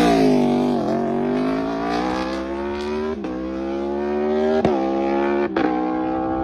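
Motorcycle engine revving: the note drops about a second in, then climbs steadily as the bike pulls, with a few sharp clicks along the way.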